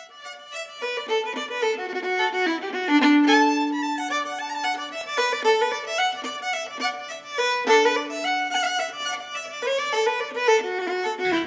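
Fiddle playing a fast Irish reel: quick runs of short notes, twice settling on a long held note.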